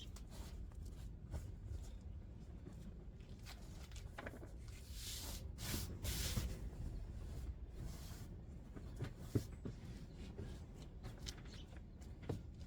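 Things being handled and moved about in a small space: rustling and scraping with scattered light knocks, a longer scratchy swishing about midway, and one sharper knock a little later.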